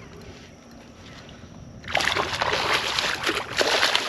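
Hooked speckled trout thrashing and splashing at the water's surface beside the kayak, starting suddenly about halfway in and continuing as a run of quick splashes.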